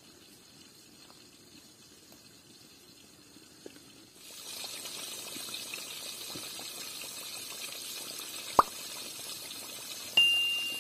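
Coated chicken frying in hot oil: a steady sizzle with small crackles that starts about four seconds in. A sharp click comes later, and near the end a loud metallic clink rings briefly.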